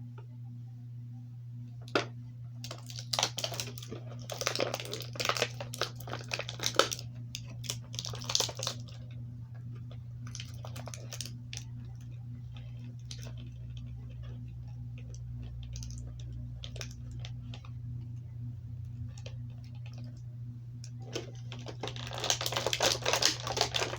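Plastic blister packaging and card backing of a carded action figure being handled and opened by hand: irregular clicks and crackles coming in bursts, busiest near the start and again near the end, over a steady low hum.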